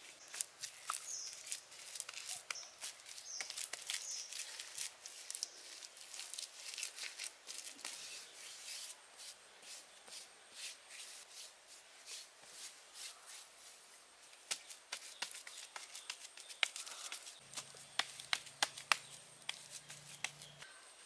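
Hands working wet, fibrous mud: rubbing and pressing it smooth and pulling and packing clumps, with many small crackles and ticks.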